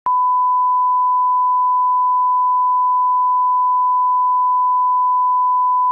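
Colour-bars test tone: one steady, unbroken beep at a single pitch, held for about six seconds and then cut off abruptly.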